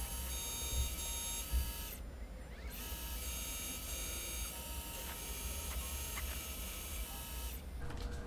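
Bridgeport milling machine cutting aluminium with an end mill: a steady whine of several high tones over the machine's low hum. The whine breaks off briefly about two seconds in, and near the end it stops and gives way to lower steady tones.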